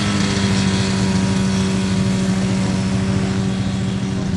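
Hummel Aviation UltraCruiser ultralight's engine and propeller running at a steady pitch as the aircraft flies past low.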